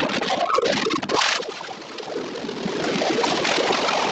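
Storm wind and heavy rain buffeting the nest webcam's microphone, a dense rushing noise that eases briefly about two seconds in, sped up sixteen times.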